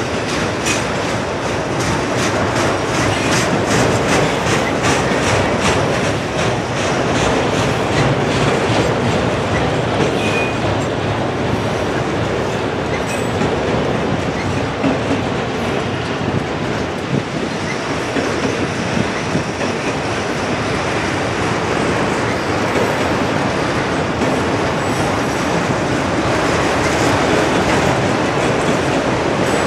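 Freight train of enclosed autorack cars rolling steadily past: continuous rumble and rattle of the cars, with rapid wheel clicks that are most marked in the first several seconds.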